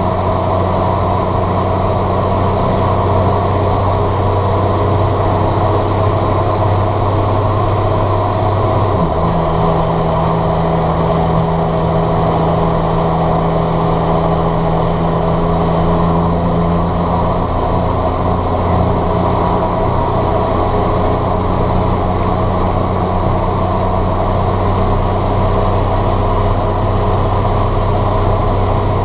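John Deere 7710 tractor's six-cylinder diesel engine running steadily. Its note changes about nine seconds in and returns to the earlier note around eighteen seconds in.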